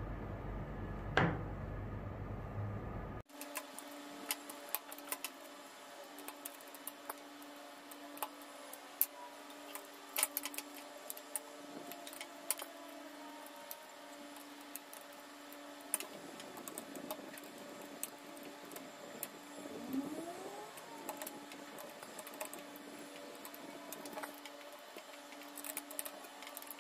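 Light clicks and taps of wires and crimped metal terminal lugs being handled and fitted onto a power supply's screw terminal block, over a faint steady hum. A low rumble cuts off abruptly about three seconds in.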